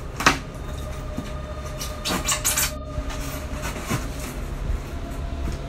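A box cutter cutting through the wall of a styrofoam cooler in short scraping strokes: a sharp click about a quarter second in, a run of strokes around two seconds in and another near four seconds. A steady low rumble runs underneath.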